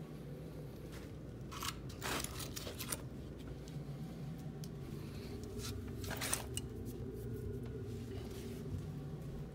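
Split firewood being handled: a few short scrapes and crunches of dry wood, about two seconds in and again about six seconds in, over a steady low hum.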